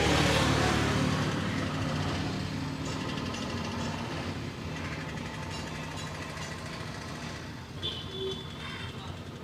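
Street traffic: a motor vehicle's engine passes close by, loudest at the start and fading away over several seconds.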